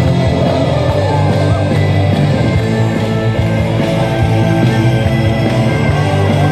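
Loud music with sustained low drone notes and a steady driving pulse.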